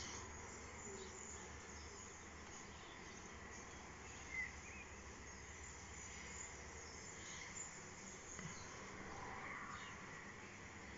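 Faint, steady whine of a circular saw running some distance away, with a brief louder sound about four seconds in.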